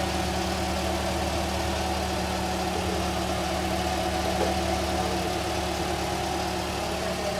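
Toyota Grande's engine idling steadily, with an even, unchanging hum.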